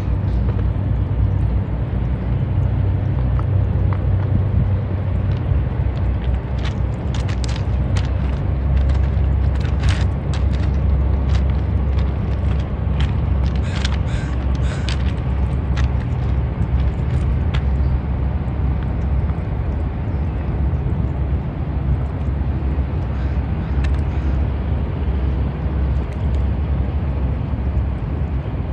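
Steady low engine rumble. A run of short, sharp clicks and taps sits in the middle stretch.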